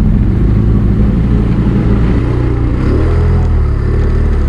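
Can-Am Renegade XMR 1000R ATV's V-twin engine running through an SLG Sniper slip-on exhaust, close by and steady, with the revs climbing a little just past halfway.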